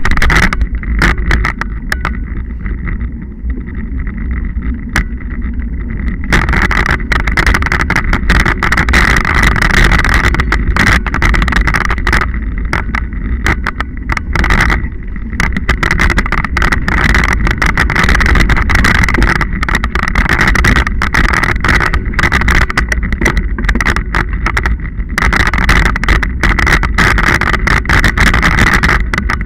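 Scott Genius 40 mountain bike ridden over a muddy dirt track, heard through a bike-mounted camera: heavy wind rumble on the microphone with tyre noise and frequent rattles and knocks from the bike over bumps, busier from about six seconds in.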